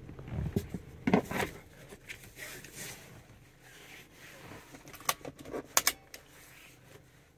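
A few knocks and clicks of handling, the loudest about a second in, then a cluster of sharp clicks and a jingle of car keys about five to six seconds in.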